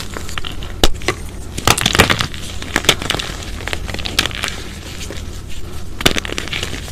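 A sun-dried chalk cylinder crunching and crackling as it is crushed between bare hands into chalk powder. Sharp cracks come about a second in and in a cluster near two seconds, with more scattered through, over a steady gritty crumbling.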